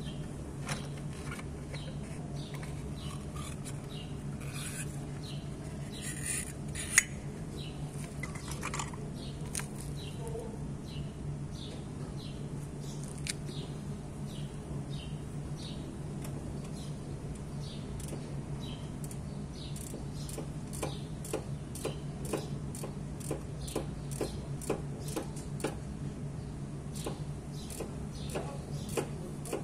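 Small clicks and light knocks of a cogged CVT drive belt being worked off the variator and clutch pulleys of a two-stroke scooter by hand, with one sharper click about seven seconds in and clicks coming faster in the second half, over a steady low hum.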